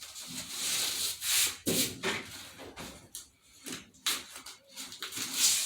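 A series of irregular rubbing strokes on a surface, seven or eight swipes of uneven length.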